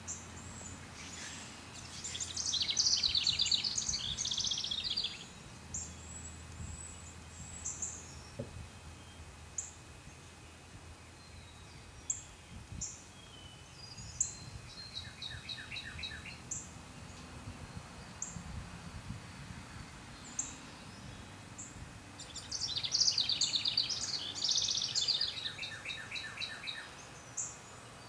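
Songbirds singing in the background: two loud bursts of rapid trilling song, one a couple of seconds in and another near the end, a softer trill in the middle, and short high chirps repeating throughout over a low steady outdoor hum.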